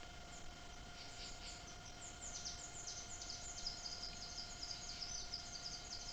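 Rapid series of short, high-pitched animal chirps, each falling quickly in pitch, growing denser from about two seconds in, over a faint steady hum.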